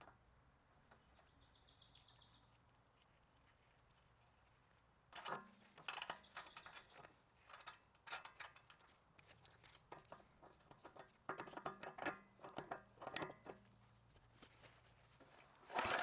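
Faint clicks and clinks of a wrench on a brass hydraulic fitting being tightened onto a gear pump's outlet port, coming in irregular clusters from about five seconds in. Right at the end the backhoe's small engine starts running.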